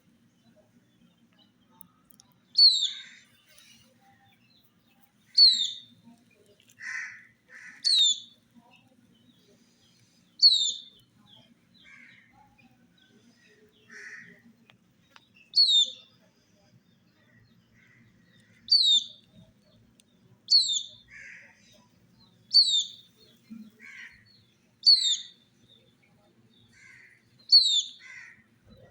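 Chicks peeping: about ten loud, short peeps that fall in pitch, repeated every two to three seconds, with fainter, lower chirps in between.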